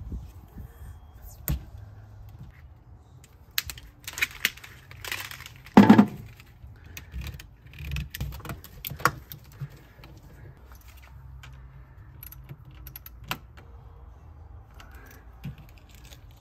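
Handling noise from fitting heavy battery cables to a terminal: irregular clicks, rattles and rustles of cable lugs, plastic terminal boots and the cable against the battery box, with one louder knock about six seconds in.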